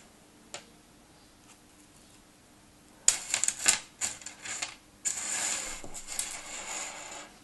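Bracelets being handled on a table top: a single click, then about three seconds in a quick run of clicks and rattles, then a steady rubbing for about two seconds as a bangle is slid into place.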